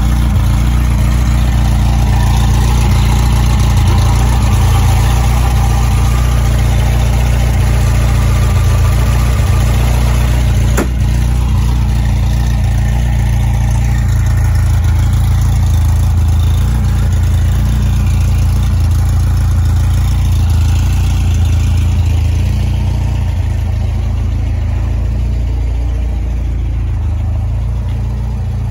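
1970 VW 181's 1914cc air-cooled flat-four engine idling steadily. There is a single sharp click about eleven seconds in, and the engine grows a little quieter near the end.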